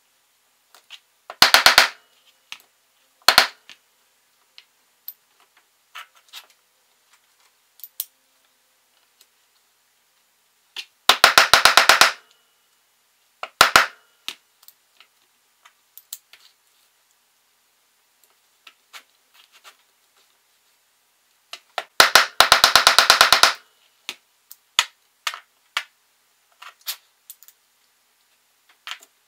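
Mallet blows on a steel alphabet-stamp handle, driving letter stamps into thick leather on a granite slab: sharp cracks in quick rapid-fire runs of several blows, three main runs with single strikes between, and light clicks of the stamps being set and moved.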